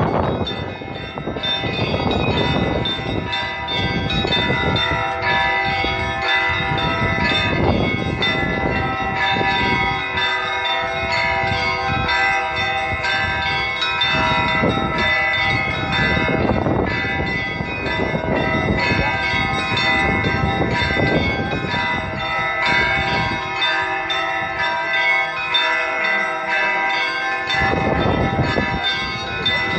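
Russian Orthodox cathedral bells ringing the festive Paschal peal (trezvon): many bells overlapping in a dense, steady ringing, with deeper strokes at uneven intervals of a few seconds.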